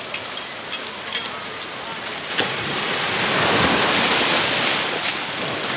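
Strong high-tide surf rushing onto the shore: a wash of breaking-wave noise that swells about two and a half seconds in and then slowly eases.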